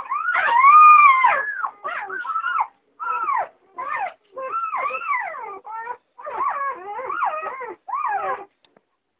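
Doberman puppies whining and yelping in a string of high, arching cries that stop about eight and a half seconds in.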